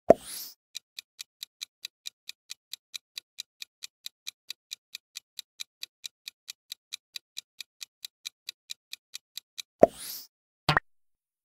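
Clock-tick sound effect of a quiz countdown timer, ticking evenly at about four to five ticks a second. A swoosh opens it, and near the end the ticking stops for another swoosh and a short sharp hit as time runs out.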